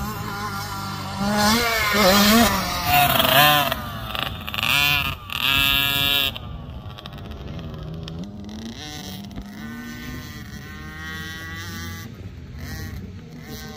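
Dirt bike engines revving up and down in pitch as the bikes ride the motocross track, loudest in the first six seconds, then a fainter, steadier engine drone.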